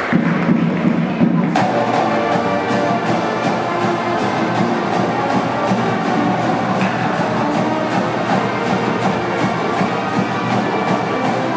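Pep band playing: trumpets, trombones and sousaphones over a drumline. About a second and a half in, the drums and cymbals come in with a steady beat.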